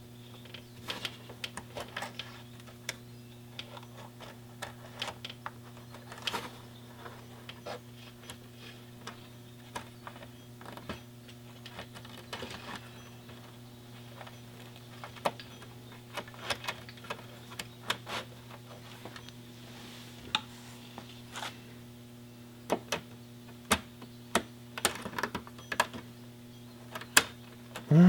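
Irregular small clicks and taps of cable ends, a slide and a spring being handled and fitted into a motorcycle throttle-cable distribution box, over a steady low electrical hum.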